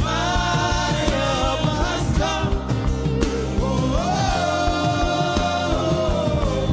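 Gospel worship music: a voice sings long held notes over instrumental backing, one drawn-out note running through the second half.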